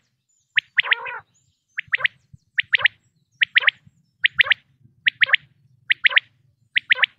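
Common quail calling, a quick three-note phrase of sharp, falling whistled notes repeated about once every 0.8 seconds, eight times in a row.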